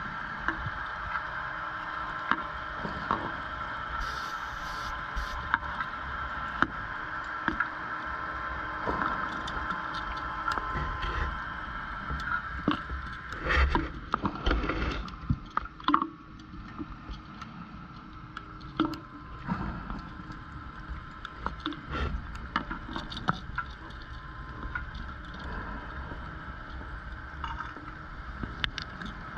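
Underwater sound picked up by a diver's camera: a steady whine running under scattered clicks and crackles. A louder, noisier stretch comes from about 13 to 15 seconds in.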